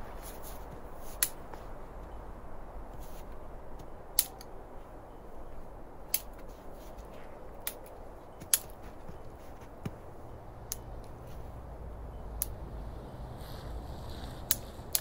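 Dry pine twigs snapping as they are broken off by hand: about ten sharp, separate cracks at uneven intervals over a low steady background noise.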